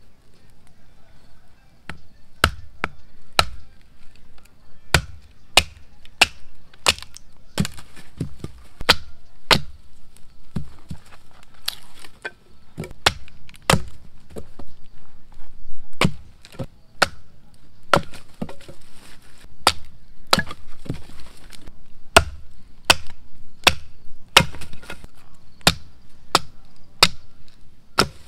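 Firewood being split by hand: a long run of sharp wooden knocks, one or two a second with short pauses, as small logs are struck and split into kindling.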